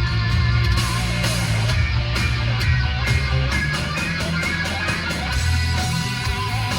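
Guitar-led music played through a car's factory audio system, with heavy bass, recorded in the cabin on a phone.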